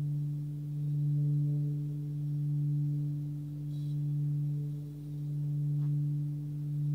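A 26 cm hand-forged Sun Moon singing bowl sung by circling a wooden stick around its rim: a steady drone on its fundamental near 146 Hz (D) with a higher overtone above it, swelling and fading about every second and a half as the stick goes round.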